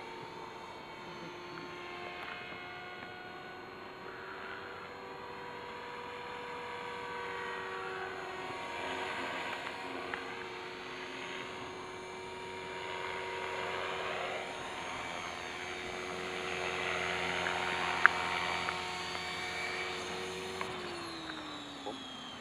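Align T-rex 450 Pro electric RC helicopter in flight: a steady high whine from the motor and rotor, with a whooshing that swells and fades as it manoeuvres. Near the end the whine drops in pitch as it sets down on the grass and the rotor slows. There is one sharp click partway through.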